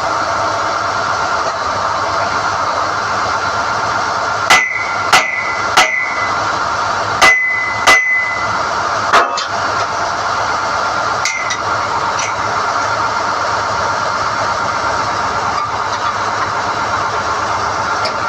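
SDH-1600 drilling rig running steadily while NQ drill rods are pulled from the hole. About six sharp metal clanks ring briefly a few seconds in, and two lighter ones follow.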